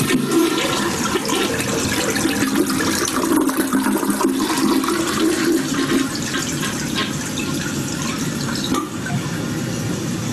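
Toilet flushing, the final test of a running-toilet repair with a newly set fill valve. Water rushes and swirls down the bowl, and about six seconds in the heavier rush eases to a steady hiss as the toilet refills.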